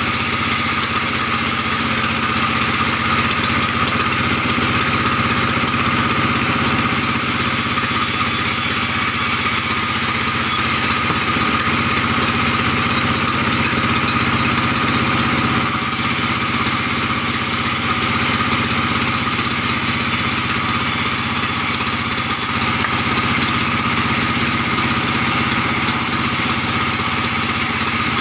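Engine-driven sawmill band saw running steadily, its blade ripping through albasia timber.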